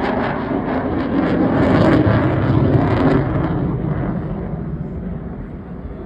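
Jet noise from a Eurofighter Typhoon's twin Eurojet EJ200 engines as the fighter flies past, swelling to its loudest about two to three seconds in and then fading away.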